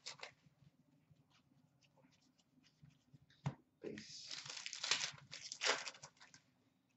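Hockey trading cards rustling and sliding against each other as they are handled. There is a short rustle at the start, a single tap about three and a half seconds in, then about two seconds of steady rustling.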